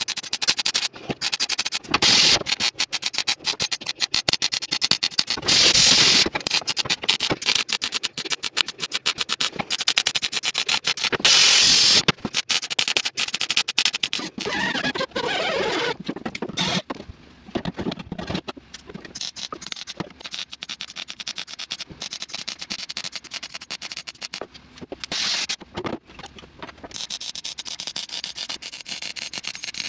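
Wire-feed MIG welder crackling in stop-start runs, welding thin sheet-steel floor seams and plug welds, with short pauses between beads.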